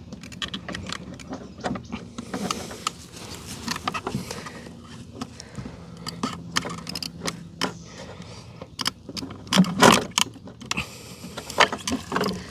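Hands working fuel pump hardware loose: irregular clicks, taps and rattles of plastic and metal parts, with the loudest cluster of knocks about ten seconds in.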